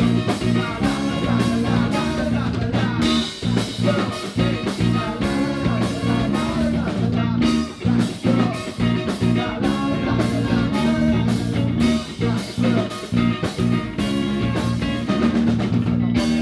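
Live band playing loud upbeat music with electric guitar, bass and drum kit keeping a steady beat, and some singing.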